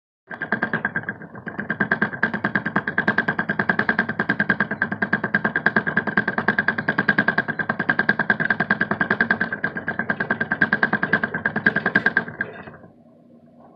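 Plastic saucer-style hamster wheel spinning under a running dwarf hamster: a fast, even rattle with a steady high squeak running through it, stopping suddenly near the end.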